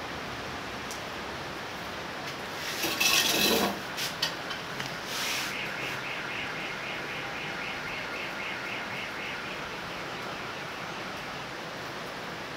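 Steady rain hiss. Over it a bird gives a loud call about three seconds in, then a rapid run of high chirps, about four a second, which dies away after several seconds.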